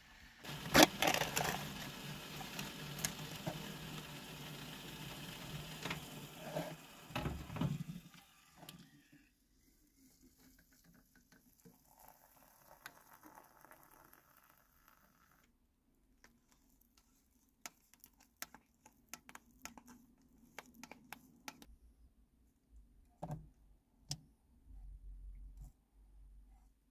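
Camp cooking sounds: a steady hiss for the first eight seconds or so, then water poured from a kettle into an instant-mash pot, followed by scattered light clinks and scrapes of a spoon and frying pan.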